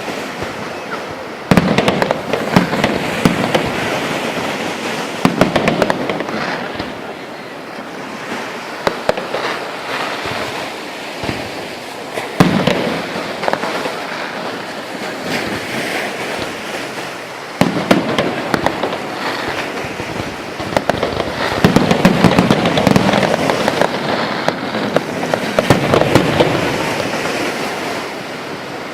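Fireworks going off: shells bursting with loud bangs every few seconds over continuous crackling.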